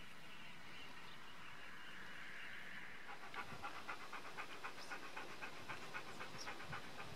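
A rapid series of short animal calls, about five a second, starting about three seconds in and running on for some four seconds, over a faint steady outdoor background.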